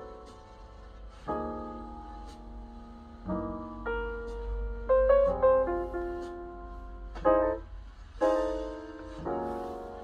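Jazz piano recording played back through Onkyo SH-410 bookshelf speakers driven by a Yamaha AX-592 stereo amplifier. Chords are struck about every second and ring out and fade between them.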